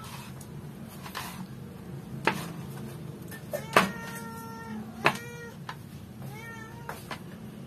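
A cat meowing repeatedly in drawn-out meows, mixed with a few sharp knocks of a cleaver chopping through raw chicken onto a wooden cutting board. The chops are the loudest sounds.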